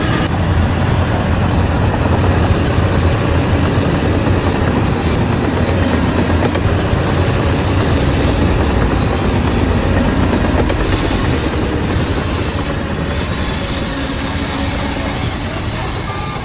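Bulldozer diesel engine running under load, with the high, on-and-off squeal of its steel crawler tracks.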